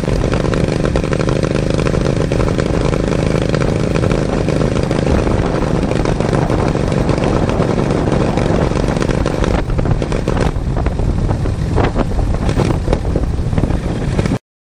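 Racing lawn mower's engine running loud and steady under load as the mower drives down a dirt track. About ten seconds in the sound thins and a few knocks and rattles come through, then it cuts off suddenly.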